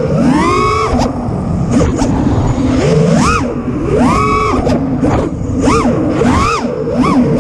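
Brushless motors and propellers of a 5-inch FPV freestyle quadcopter (Ethix Mr Steele Stout 2306 1750KV motors) whining up and down in pitch as the throttle is punched and released, about once a second.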